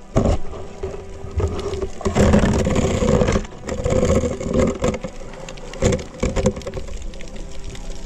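Underwater sound of a diver moving with a pole spear: irregular rushing and knocking noises, loudest for a second or so about two seconds in, over a faint steady hum.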